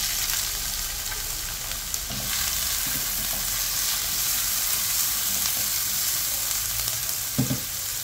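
Diced onion, green pepper and garlic hit hot oil in a frying pan and start to sizzle suddenly, then keep sizzling steadily while a spatula stirs them.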